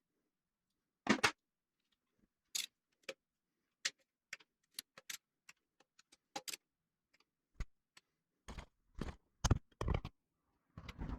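Irregular metallic clicks, clinks and knocks of hand tools and parts being handled while assembling a Subaru EJ253 engine, with a cluster of heavier knocks near the end.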